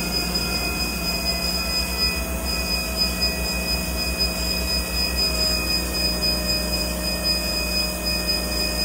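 Amada CTB400 automatic vertical bandsaw running, a steady low hum with several thin whining tones from its drive. Some of the whine tones step to a new pitch about two and five seconds in as the blade speed setting is changed.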